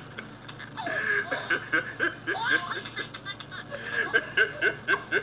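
A man laughing hard in quick, repeated bursts of cackling laughter, with the bursts coming faster near the end.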